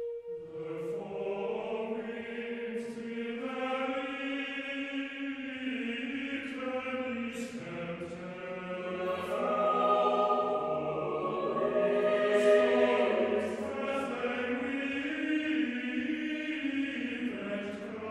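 Background music: slow choral singing in long, sustained chords, swelling louder about halfway through.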